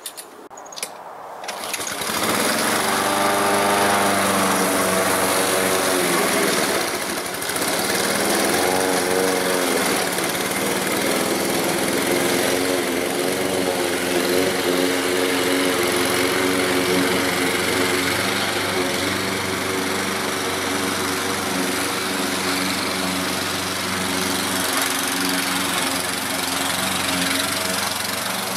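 Poulan Pro 21-inch gas push lawn mower running at full throttle while cutting grass. The engine sound comes up about two seconds in, then holds steady with slight wavers in pitch.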